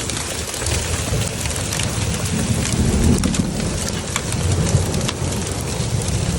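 Hail and rain pelting down hard: a dense steady hiss peppered with many sharp ticks of hailstones striking, with a low rumble underneath.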